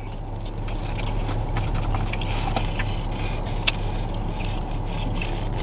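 Steady low hum of a car running, heard inside the cabin, with small clicks and crackles of fries being picked from a foam takeout container and chewed, and one sharper tick about two-thirds of the way through.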